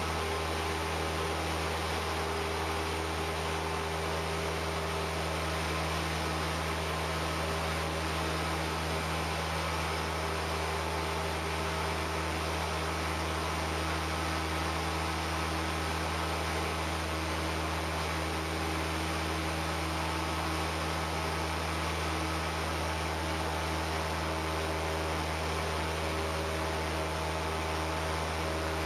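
Cessna 172P's four-cylinder Lycoming engine and propeller in flight after takeoff, a steady drone mixed with rushing wind noise, unchanging throughout.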